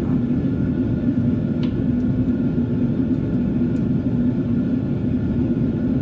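Steady rumbling drone of a garage heater running, with a constant low hum, and a few faint light clicks about one and a half and four seconds in.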